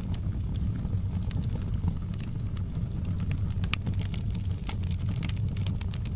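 Wood fire burning with a steady low rumble under frequent, irregular sharp crackles and pops, a few of them louder in the second half.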